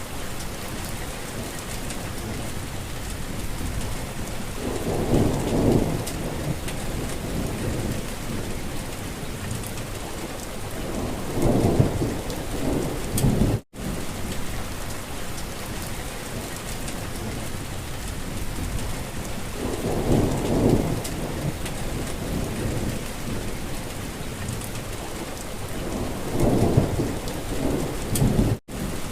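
Steady rain falling, with four low rumbles of about a second each spread through it. The sound drops out for an instant twice, about halfway through and near the end.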